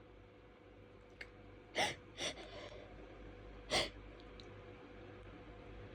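Short, sharp catching breaths in the lull of a sneezing fit: two close together about two seconds in and one more near four seconds, the hitching build-up before the next sneezes.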